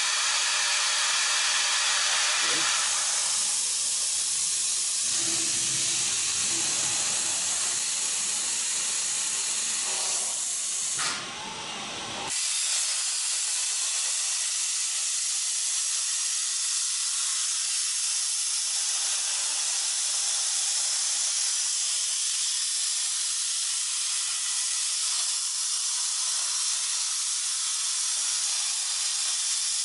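Plasma cutter torch hissing steadily as it cuts, with a brief dip about eleven seconds in before the hiss carries on.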